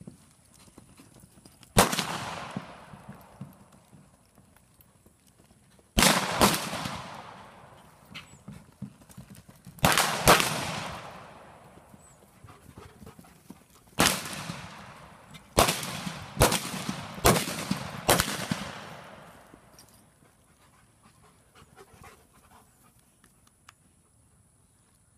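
Ten revolver shots of black-powder blanks fired from a galloping horse at balloon targets, spread over about sixteen seconds, with two quick pairs among them; each bang is followed by a long echoing tail.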